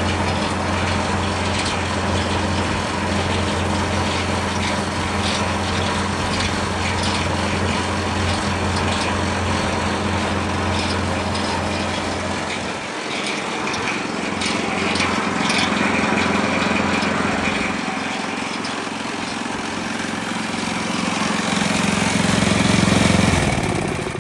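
Small engine running steadily, driving the trommel wash plant's water pump. Its low hum shifts in tone about halfway through.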